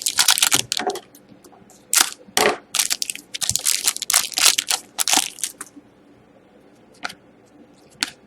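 Crackly crinkling and rustling as trading cards and their packaging are handled, in a quick run of short bursts for about five seconds, then only a couple of faint clicks.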